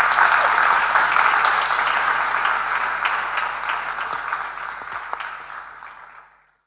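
Audience applauding, a dense patter of many hands clapping that starts at full strength and dies away over the last couple of seconds before cutting off.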